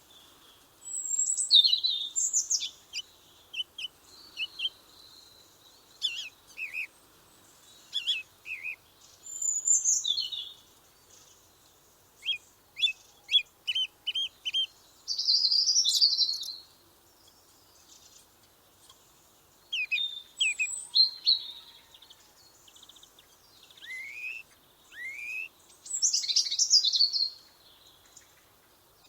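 Small birds singing and calling in short, high-pitched phrases separated by pauses. There is a quick run of short repeated notes around the middle and two rising whistles near the end.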